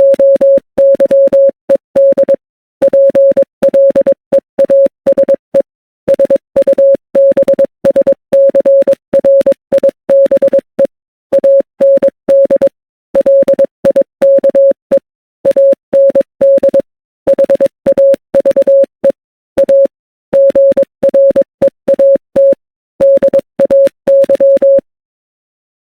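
Morse code beeps: a single steady mid-pitched tone keyed on and off in short and long beeps, grouped into letters and words with pauses between. Faint clicks mark the start and end of each beep, and the code stops about a second before the end.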